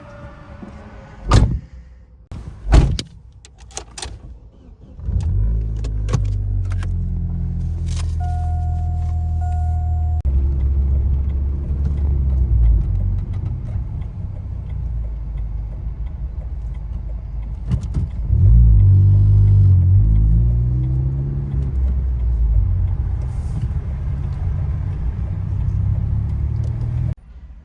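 A few sharp knocks, then a loud, steady low rumble of a vehicle starting about five seconds in and cutting off suddenly near the end. A short electronic beep sounds twice in the early part of the rumble.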